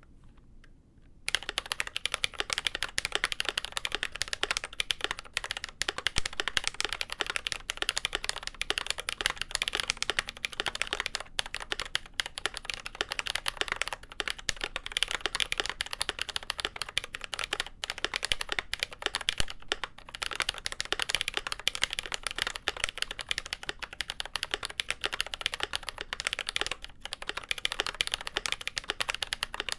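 Fast continuous typing on a GMMK Pro mechanical keyboard with lubed Glorious Panda tactile switches on a polycarbonate plate, a dense stream of keystroke clacks starting about a second in, with brief pauses between bursts.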